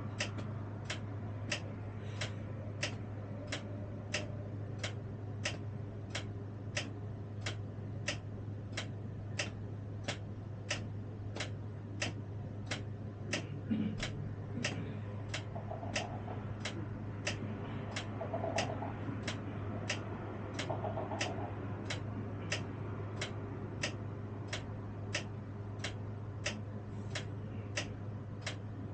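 Tram's turn-signal indicator ticking steadily in the driver's cab, a little under two clicks a second, over a steady low hum.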